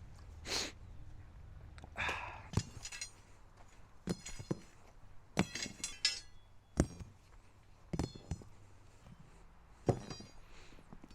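Steel rebar clanking as lengths are handled: about a dozen irregular sharp metal knocks and clinks, several ringing briefly.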